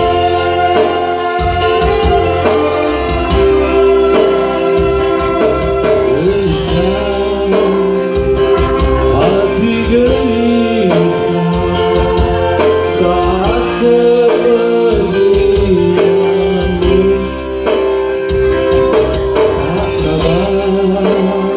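Music from a slow Malay-language love song: a gliding lead melody over sustained chords and a steady bass.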